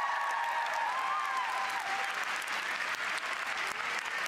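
Arena audience applauding steadily, many hands clapping at once, with a few voices calling out over it in the first couple of seconds.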